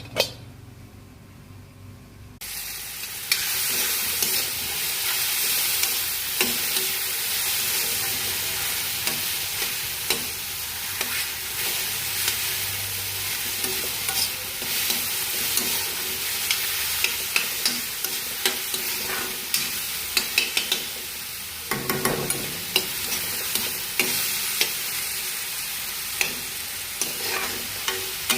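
Food frying in a hot pan, a steady sizzle that grows much louder about two seconds in, with frequent short scraping clicks of a spoon or spatula stirring against the pan.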